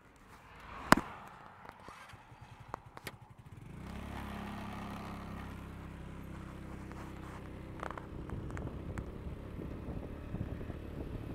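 A sharp click about a second in, then a vehicle engine comes in about four seconds in and runs steadily at a low, even pitch.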